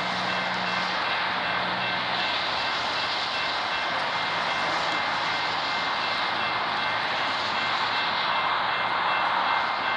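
Steady roar of an approaching freight train's Norfolk Southern AC44C6M diesel locomotives, growing a little louder near the end.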